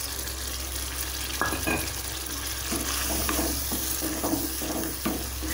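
Tomato-onion masala sizzling in a metal kadai while a wooden spatula stirs and scrapes through it. The stirring strokes come quick and irregular from about a second and a half in.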